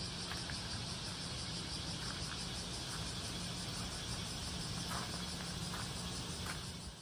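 Outdoor ambience: a steady high insect drone over a low rumble, with a few faint footsteps. It fades out at the end.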